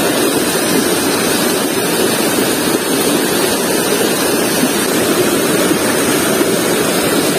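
Shallow river rushing over rocks and rapids: a steady, loud rush of water.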